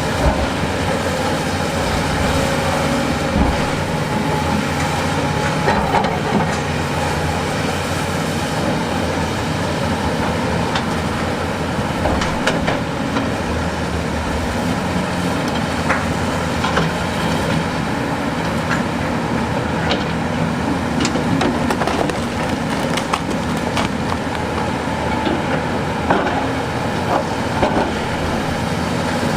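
Heavy diesel excavator engine running steadily under load, with scattered sharp clanks and knocks of rock and steel.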